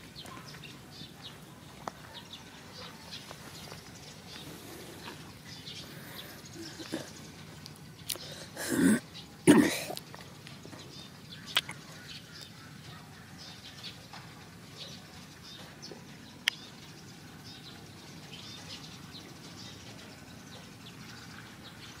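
Rural outdoor ambience with faint scattered bird chirps and a few sharp clicks; about eight to ten seconds in, two short loud animal-like calls, the second the loudest.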